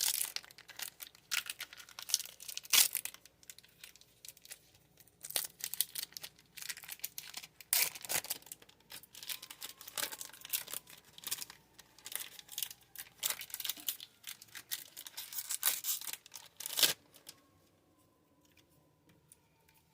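Foil wrapper of a Pokémon booster pack being torn and crinkled in many irregular sharp bursts, a pack that is hard to get open. The crinkling dies down about three seconds before the end.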